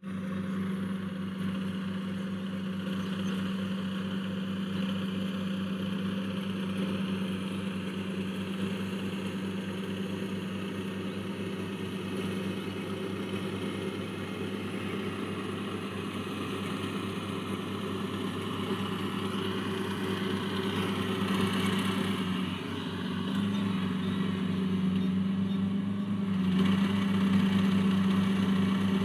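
Kubota AR52 combine harvester's diesel engine running steadily, a low hum with a fast even pulse; it gets louder near the end.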